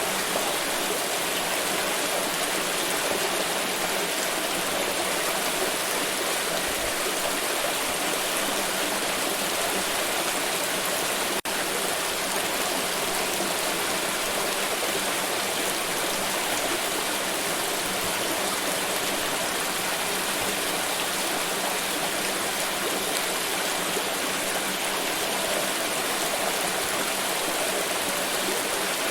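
Flowing water running steadily as an even, unbroken rush, with a momentary dip in loudness about eleven seconds in.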